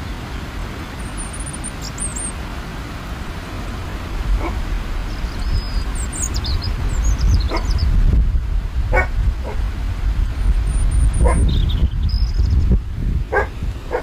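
Steady rumble of surf breaking on rocks, with wind on the microphone. Over it a dog barks about five times, a second or two apart, starting a few seconds in.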